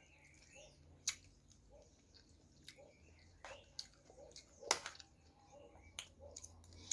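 A person chewing food quietly with the mouth close to the microphone, with a few sharp mouth clicks or smacks: about one second in, near five seconds, and again near six seconds.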